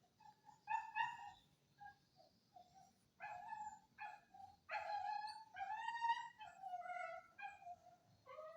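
Village dog whimpering and yipping: a few short high yelps, then a longer wavering whine about five seconds in that falls in pitch at the end.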